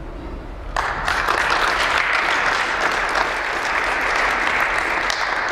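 A small group clapping their hands in applause, starting suddenly about a second in and going on steadily.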